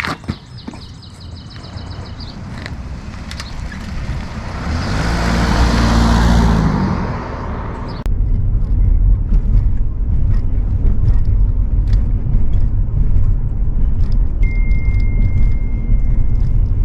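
1995 Toyota pickup's 22RE four-cylinder engine, getting louder and revving up through the first half, then after a sudden cut running with a steady low rumble.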